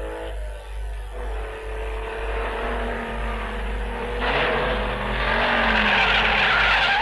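Racing cars passing at speed, their engines falling in pitch as they go by, with a louder rush of tyre and engine noise from about four seconds in. The cars are Tatraplán Sport 602s.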